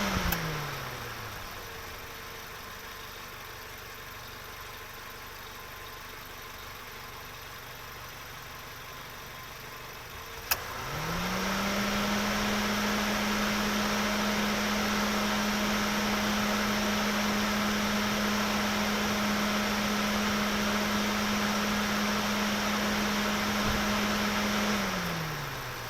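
Car engine running at steady speed that winds down to a quieter hum right at the start. A sharp click comes about ten seconds in, then the engine speeds up again and holds a steady note for about thirteen seconds before winding down near the end.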